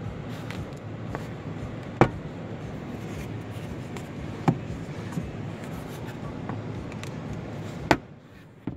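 Plastic sun visor and vanity-mirror cover in an SUV cabin being handled: a few sharp snaps and clicks as the mirror cover shuts and the visor is pushed back into its clip, the loudest at about two, four and a half and eight seconds in, over a steady background rush.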